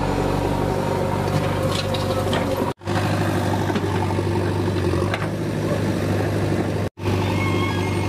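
JCB 3DX backhoe loader's diesel engine running steadily while the backhoe arm digs and dumps soil, with a few short knocks. The sound cuts out for a split second twice.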